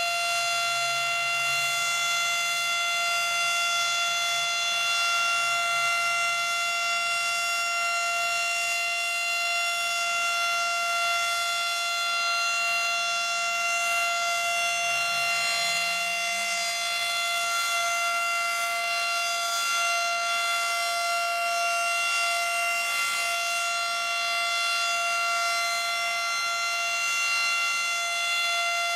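Federal Model 5 single-tone electromechanical siren sounding a steady alert at full speed, holding one unchanging pitch, during its routine monthly test.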